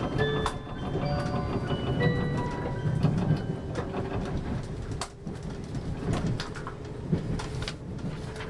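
A train rolling over yard points and rail joints, heard from inside the carriage: a steady rumble with many short clicks and clacks from the wheels. A bell-like chime tune carries on over it for the first few seconds and then stops.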